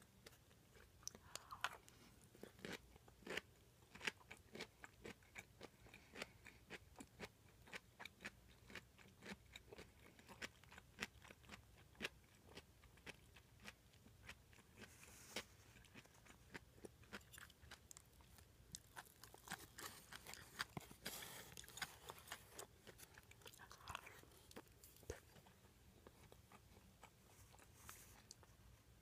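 Close-miked chewing of kakuteki, crunchy cubed daikon radish kimchi: a quiet, continuous run of crisp crunches and wet mouth clicks, several a second.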